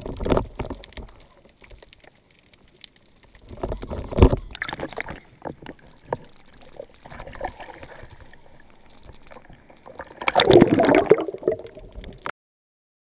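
Sea water sloshing and gurgling around a camera held at and just below the surface, in irregular bursts, the loudest a little before the end. The sound cuts off suddenly near the end.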